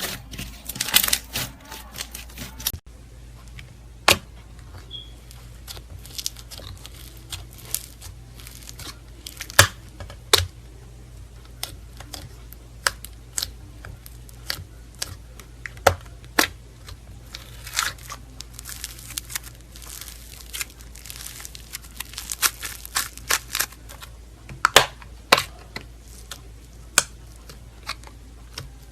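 Slime being handled: dense crackling for the first few seconds, then sparse, irregular sharp clicks and pops, over a low steady hum.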